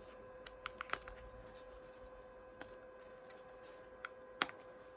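Plastic back cover of a Toyota key fob being pressed and snapped back onto the fob: a few light clicks about a second in, then a sharper click near the end as it seats.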